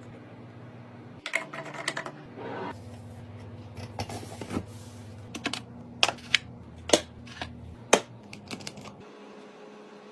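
Irregular sharp clicks, taps and light clatter of small hard objects being handled and set down, over a low steady hum; the clicking stops about nine seconds in.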